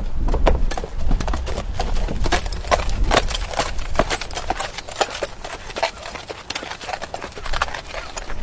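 A horse walking: irregular hoof clip-clops, a few strikes a second, over a steady low rumble.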